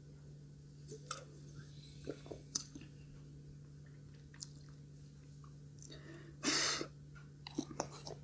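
Close-miked sips and swallows of soda from a can, with small wet clicks, then a short loud rush of breath about six and a half seconds in, and a few light clicks of chopsticks near the end.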